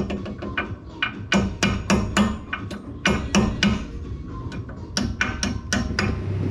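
Quick runs of sharp metallic knocks and clicks from hand-tool work on the car.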